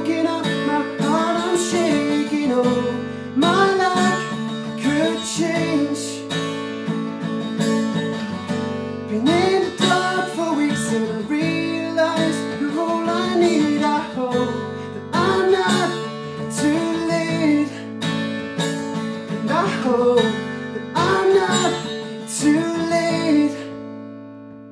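Acoustic guitar strummed in a steady rhythm with a man's voice singing long, wordless melodic lines over it; the strumming thins out and quiets near the end.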